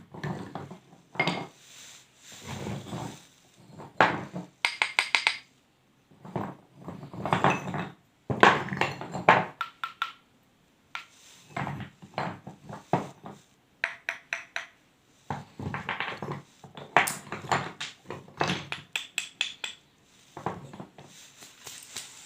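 Pieces of a fired clay pot crunching as they are bitten and chewed, in repeated bursts of gritty crunches and quick runs of sharp crackles with short pauses between them.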